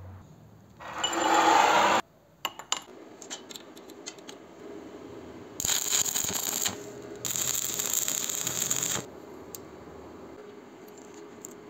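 Stick-welding arc crackling and hissing in two bursts, about a second and then about two seconds long, past the middle, as a roller chain is tack-welded to a steel vise jaw. Earlier there is a loud noisy burst that cuts off about two seconds in, followed by a few light metallic clicks.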